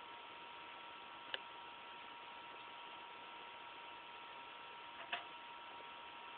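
Faint steady hiss with a thin, steady high-pitched electronic whine, broken by two sharp clicks, one about a second in and one about five seconds in.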